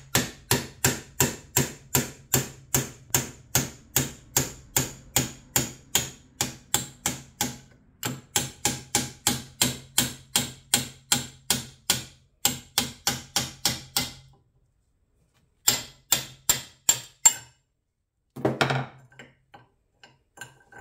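Hammer blows on a large steel bolt used as a drift, driving the old wooden handle out of the eye of an axe head clamped in a vise. The strikes come about three a second in long runs with short pauses, then a final run of four, followed by a brief clatter near the end.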